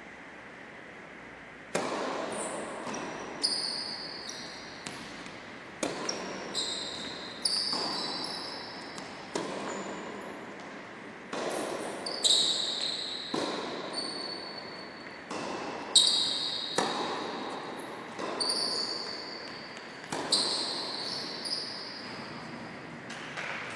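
Tennis rally in a large echoing sports hall: after a short quiet spell, a serve about two seconds in is followed by sharp racket strikes and ball bounces every second or so, each ringing off the hall. High squeaks from shoes on the court floor come between the hits.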